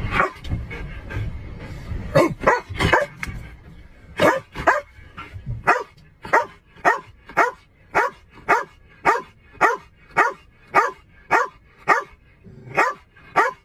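Police K-9 dog barking in its cage in the back of a patrol car. There are a few uneven barks at first, then from about halfway a steady run of barks, about two a second.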